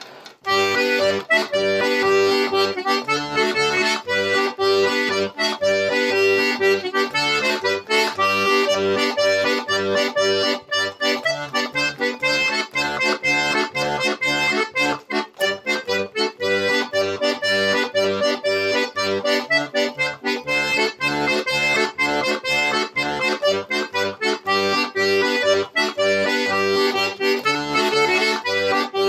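Castagnari diatonic button accordion playing a lively farandole: a melody on the treble buttons over a steady, rhythmic pulse of bass notes.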